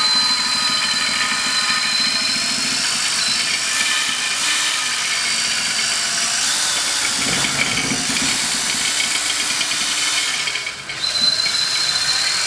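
Cordless drill running a spinning carboy brush inside a glass carboy, the motor whining steadily while the brush churns the foamy solution against the glass. The speed wavers, and the drill stops for a moment about two seconds before the end, then starts again.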